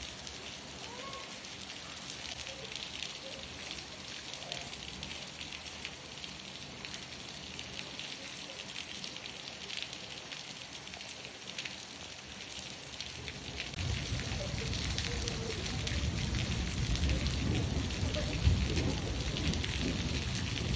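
Steady rain falling, an even hiss of drops. About two-thirds of the way through a low rumble builds up underneath and stays, with one sharp knock near the end.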